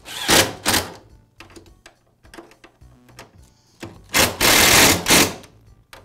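A screwdriver driving a screw that fastens the power cord's clamp to the table saw's plastic housing: two short rasping bursts about half a second in, then a longer one of about a second a little after four seconds, with small clicks between.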